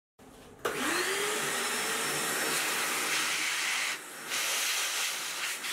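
Vacuum motor starting with a rising whine about half a second in, then a steady rush as it sucks oil and metal chips out of the recess in the dividing head's base. The rush dips briefly after about four seconds.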